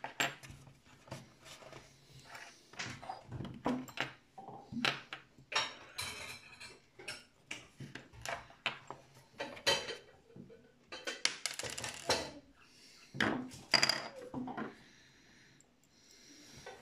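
Hands handling the plastic hull and tracks of a model RC tank, giving a string of small clicks, taps and clatters of plastic and small metal parts, with a small metal tool in use; it quietens near the end.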